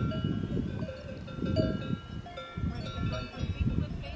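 Alpine cowbells on cattle ringing and clanking irregularly, several bells overlapping, with a low rumble of wind on the microphone underneath.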